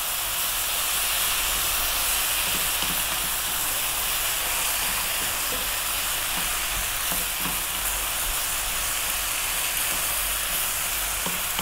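Rice noodles, bean sprouts and vegetables sizzling steadily in a hot oiled wok on a fairly high heat, stirred with a wooden spatula that gives a few faint light taps and scrapes.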